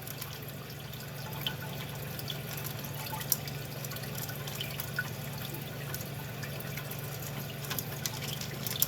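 Steady trickling water in an open toilet tank under a constant low hum, with a few small clicks as a plastic flush-valve part is unscrewed by hand.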